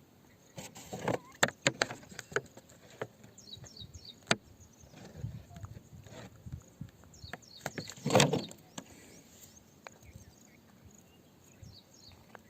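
A run of sharp knocks and clicks, as of rock or tools striking, bunched in the first couple of seconds, with a louder scraping clatter about eight seconds in. Faint bird chirps sound now and then.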